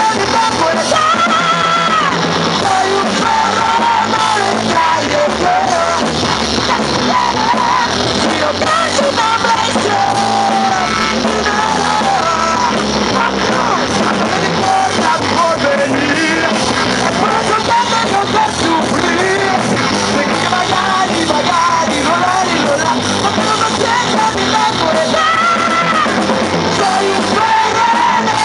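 Rock band playing live: a male singer singing over electric guitars and a drum kit, loud and continuous.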